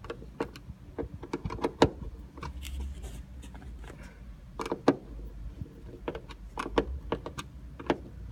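Screwdriver tightening a sun visor mounting screw into its ceiling bracket: irregular clicks, scrapes and sharp taps of the tool and visor hardware, the loudest about two seconds in and again near five seconds.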